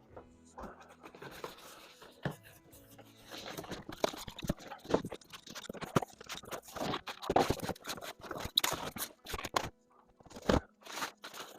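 Packaging being handled: paper and plastic rustling and crinkling, with scattered sharp clicks and knocks as parts are moved about.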